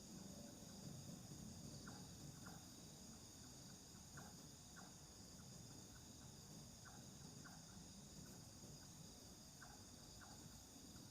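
Faint night chorus of crickets and other insects: a steady high-pitched trilling, with scattered short chirps and a low background rumble.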